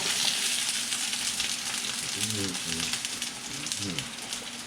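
Chopped onions freshly dropped into hot vegetable oil beside bacon-wrapped hot dogs, frying with a loud, crackling sizzle that eases slightly over the seconds.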